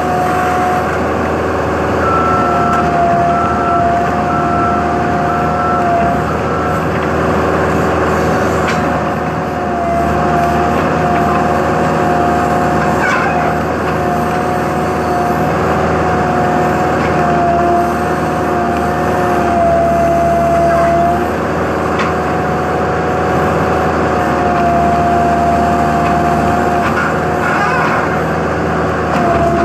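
Heavy diesel machinery running steadily under load, with a high hydraulic-style whine that wavers slightly in pitch. About two seconds in, a series of short, evenly spaced beeps sounds for around five seconds.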